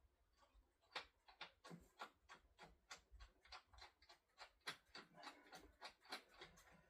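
Ratchet wrench clicking as a bolt is tightened, a run of short, sharp clicks at about three a second.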